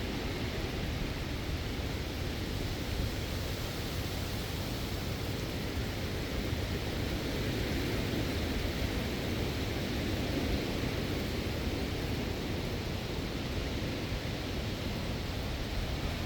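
Strong wind and heavy rain making a steady rushing noise, with wind rumbling on the microphone.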